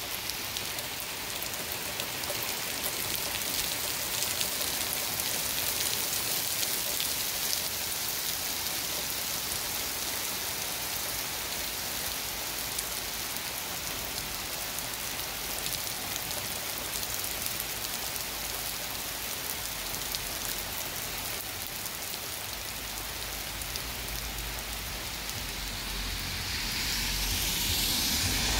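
Rain falling hard on pavement and a wet street, a steady dense hiss. Near the end a car comes along the wet road, its engine rumble and tyre hiss building.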